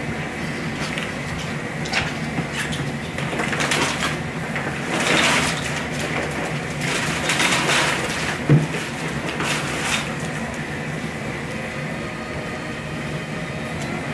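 Live crawfish sliding and clattering out of a tipped-up RTIC cooler into a steaming crawfish boil pot, in several rushes over several seconds, with a single heavy thump about eight and a half seconds in. A steady low hum runs underneath.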